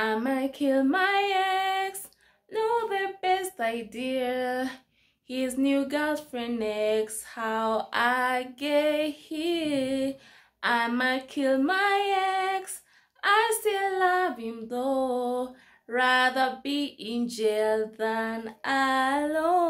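A woman singing unaccompanied, in phrases of held notes with vibrato separated by short pauses.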